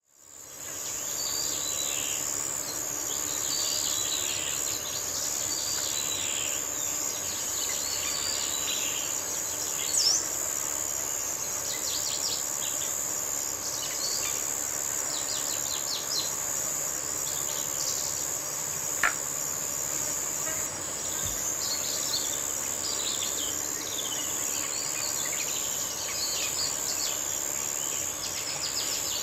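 Countryside ambience: a constant high-pitched insect drone with many small birds chirping and twittering over it, fading in over the first second. Two brief sharp clicks stand out, one about a third of the way in and one about two thirds in.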